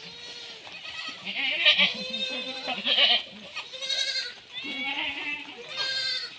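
Several goats bleating, with their calls overlapping and about five loud bleats coming roughly one a second.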